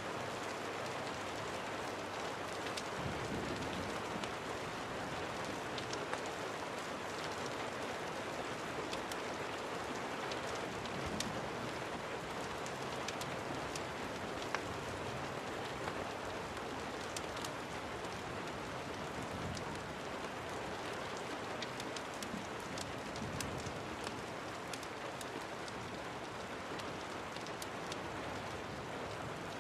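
Steady rain falling, with scattered sharp crackles and pops from a wood fire mixed in.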